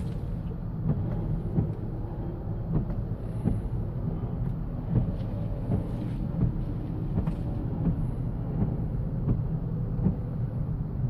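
Bosch Icon windshield wiper blades sweeping a wet windshield, heard inside a Honda Crosstour's cabin over a steady low rumble, with a light tick about every two-thirds of a second.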